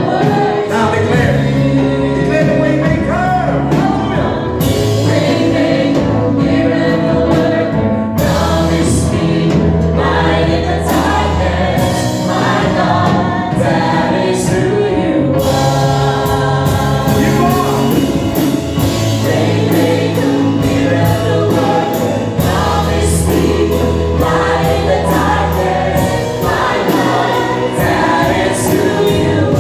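Gospel music: a choir singing with instrumental accompaniment and a steady beat.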